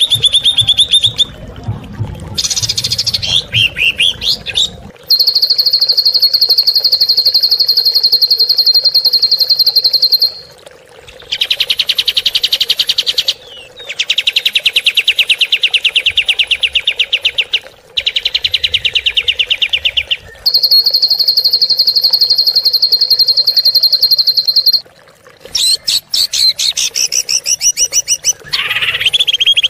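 A recorded songbird giving long, very fast harsh trills of evenly repeated high notes, the rough 'tembakan kasar' (shooting) phrases. Each run lasts several seconds with short breaks between. It is a loud masteran tutoring recording for training murai batu and cucak ijo.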